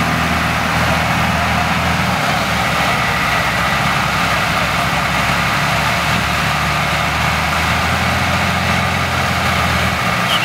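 Heavy engines of a crab sugarcane grab loader and a cane truck running steadily as the loader works, a low even drone with no break.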